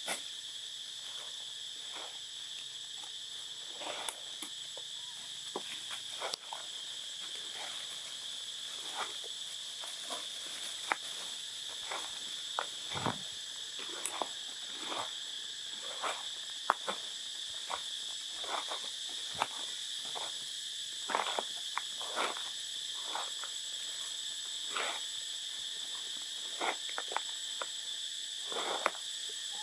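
Forest insects droning in a steady, even high buzz, with many short crackles and rustles scattered throughout, as of movement through dry leaf litter.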